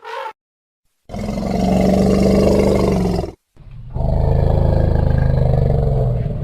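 Wild elephant giving two long, loud, low roaring calls of about two and a half seconds each, one after the other with a short break between.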